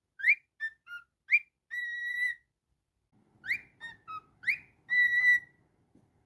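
Cockatiel whistling a short phrase twice: a few quick rising chirps, then a long held note, repeated after a brief pause.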